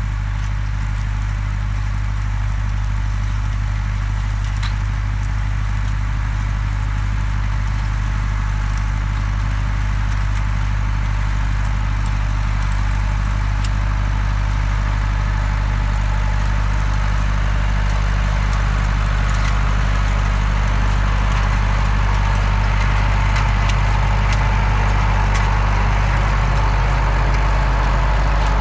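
Massey Ferguson tractor's diesel engine running steadily under load, pulling a loaded manure spreader, growing louder as it approaches and passes close by near the end.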